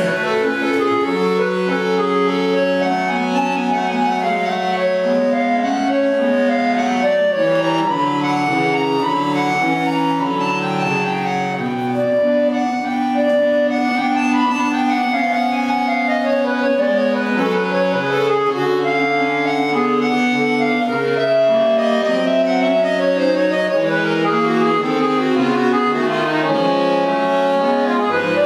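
Solo bayan (Russian chromatic button accordion) playing a classical piece: several held voices sound together, with a moving bass line beneath the melody and a steady level throughout.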